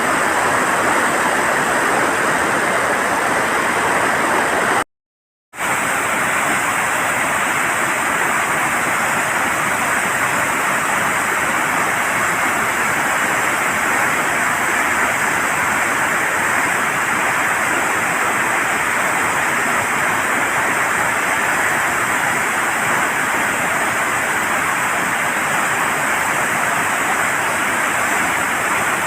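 Steady rush of floodwater pouring through the opened gates of a dam. It cuts out completely for about half a second around five seconds in, then carries on unchanged.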